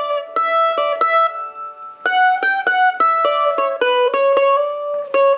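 Background music: a melody of quick plucked-string notes, each struck sharply and ringing briefly, with a short sparser pause about a second and a half in.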